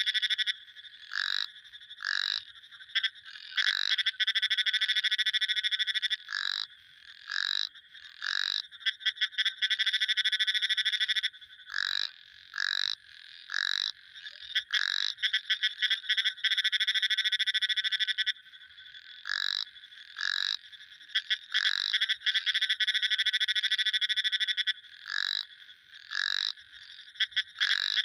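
Frogs calling: long, rapidly pulsed trills lasting a few seconds each, broken by runs of short single notes.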